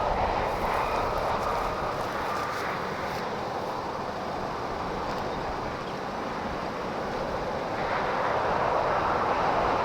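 Steady road and wind noise of a vehicle travelling on the interstate, easing a little midway and swelling again near the end.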